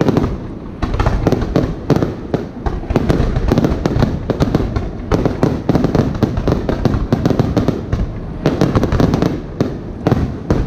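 Aerial firework shells bursting in rapid succession, a dense, loud string of sharp bangs several per second.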